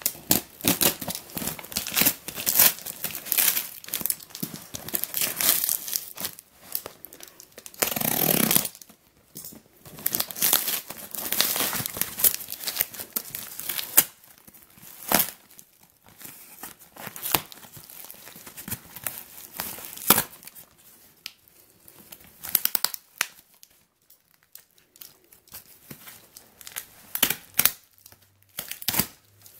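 A taped cardboard box being torn open by hand: packing tape and cardboard flaps rip and crinkle in a run of sharp crackles. One longer, louder rip comes about eight seconds in.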